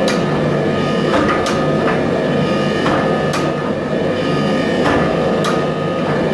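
Power hammer running and forging a red-hot steel bar, a continuous heavy pounding with sharper metallic clanks every second or so.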